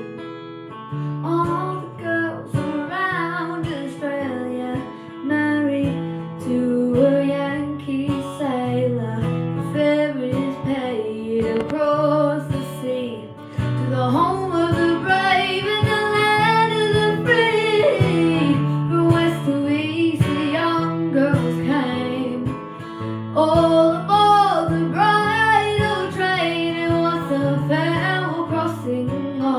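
Folk music without words: strummed acoustic guitar under a bending lead melody line.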